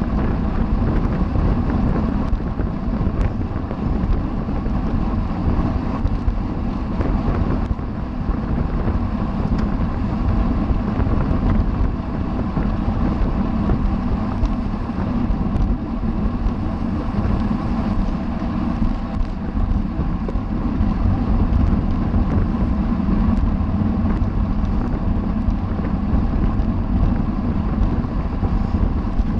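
Steady wind rushing over the microphone of a camera riding along in a bicycle race, with a constant low rumble beneath it.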